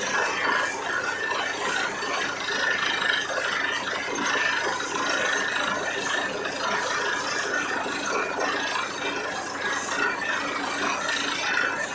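Borewell drilling rig running steadily: a continuous, dense mechanical noise from the rig's engine and drilling gear that holds level without a break.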